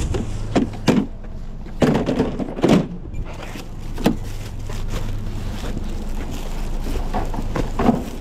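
Plastic collapsible grocery totes knocking and clattering as grocery bags are lifted out of them and loaded into a car's trunk: a series of sharp knocks over a steady low hum that fades out a little past halfway.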